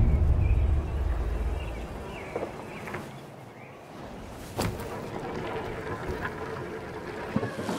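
A low rumble fades out over the first two seconds. Then comes quiet outdoor ambience with faint bird chirps and a few sharp knocks, the loudest about four and a half seconds in, as the mountain bike lands from a drop onto dirt.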